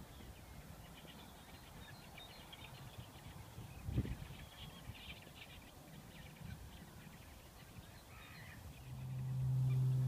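Faint scattered calls of distant birds over a low outdoor rumble, with a single thump about four seconds in. Near the end a low, steady hum swells in and becomes the loudest sound.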